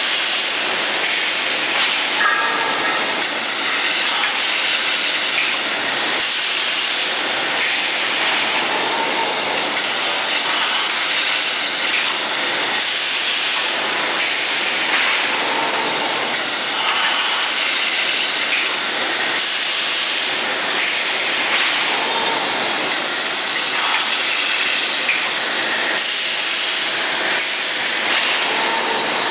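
Welded-pipe tube mill line with its flying cold saw running: a loud, steady hiss of machinery that goes on without a break.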